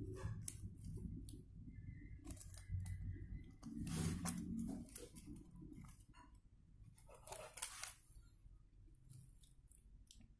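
Cracked touchscreen glass of an Advan S50 4G phone being pried and peeled off its frame by hand, without heat: faint scattered crackles and scrapes of glass and adhesive, with two longer scratchy pulls about four and seven and a half seconds in.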